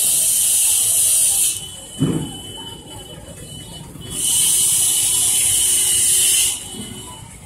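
Snake hissing in two long, loud breaths, the second from about four to six and a half seconds in, with a dull thump about two seconds in.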